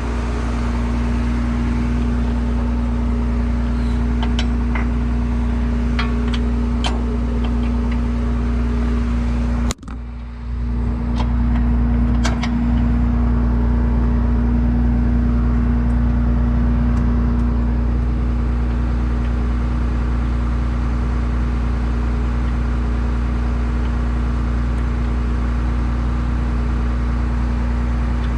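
Case 2144 combine's diesel engine running steadily, with a few light metallic clicks and knocks in the first several seconds. The sound cuts out briefly about ten seconds in, then the engine drone carries on unchanged.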